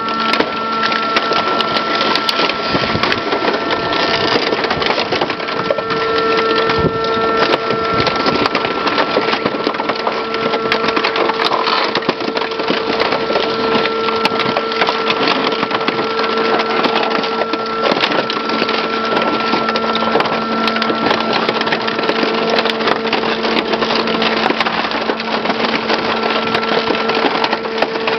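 Industrial shredder tearing up a burned-out car: dense, continuous crackling and crunching of metal under a steady machine hum.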